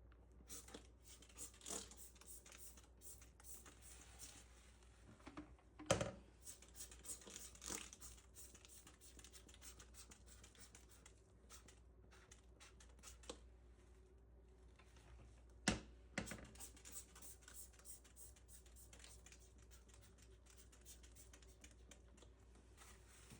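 Quiet cleaning and handling noises: faint scraping and rubbing with scattered light clicks, and two sharper knocks, about six and sixteen seconds in.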